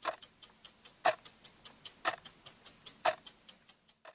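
Clock ticking: a quick run of light ticks, several a second, with a louder tick about once a second.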